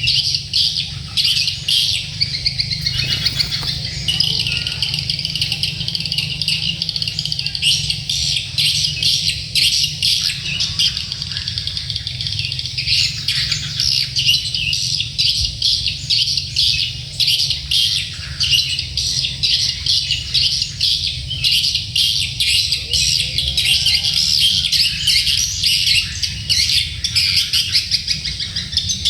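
Sogok ontong birds giving a continuous stream of rapid, high chirps and twitters, with a steady low hum underneath.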